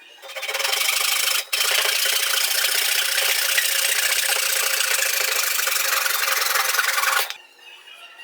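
A tool rasping steadily against a hard material, such as wood being sawn, filed or sanded. It breaks off briefly about a second and a half in, then runs on until it stops abruptly near the end.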